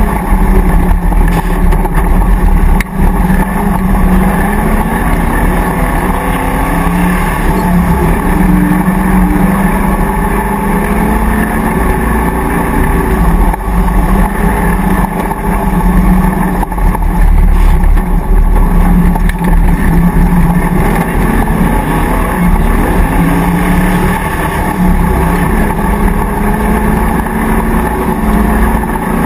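Land Rover V8 safari racer's engine running hard under load across rough ground, heard from inside the car, its revs rising and falling again and again with throttle and gear changes.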